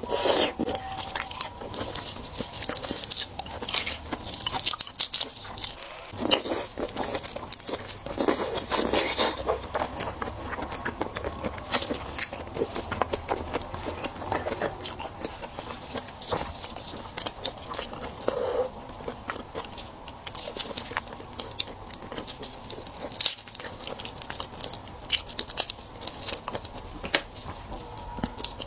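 Close-up chewing and biting of raw red devil shrimp: wet mouth sounds full of small, irregular clicks and crackles.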